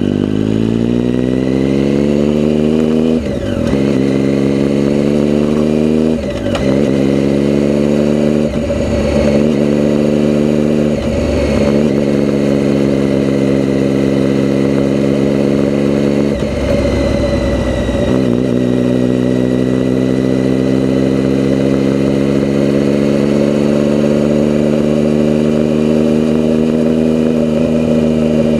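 A motor vehicle engine pulling up through the gears, its note rising and then breaking briefly at each of five shifts. After the last shift, about two-thirds of the way in, it settles into a steady cruise.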